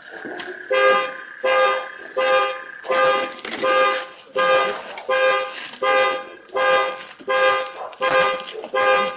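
Car alarm blaring the vehicle's horn in a steady repeating honk, about three honks every two seconds, starting just under a second in.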